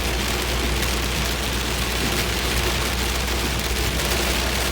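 Heavy rain pouring down steadily, a dense unbroken hiss with a steady low rumble underneath.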